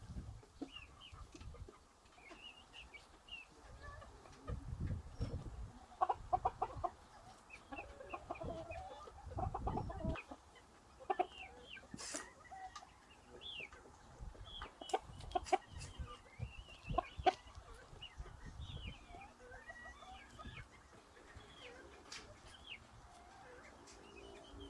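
Chickens clucking on and off, with small birds chirping throughout and a few sharp clicks.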